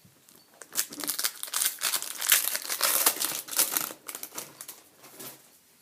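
Wrapper of a hockey trading-card pack crinkling loudly for about three seconds as it is handled and opened, tapering off near the end.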